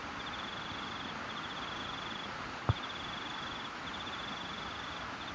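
Crickets chirping in a run of high trills, each about a second long with short pauses between, over a steady hiss. A single sharp click about two and a half seconds in.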